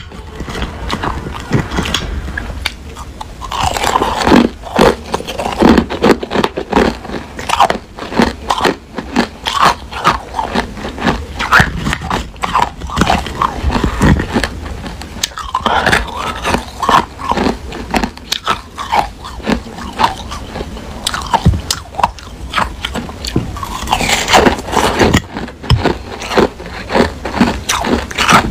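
Crushed hard clear ice being bitten and chewed close to the microphone: dense, sharp crunching that comes in repeated clusters, mouthful after mouthful.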